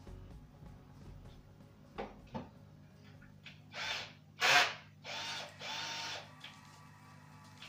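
Handheld power drill run in four short bursts of whirring, the second the loudest and the last two longer, after a couple of light clicks.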